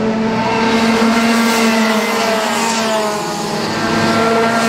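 Racing kart engines at high revs passing at speed, their pitch dropping as they go by, about a second in and again near the end.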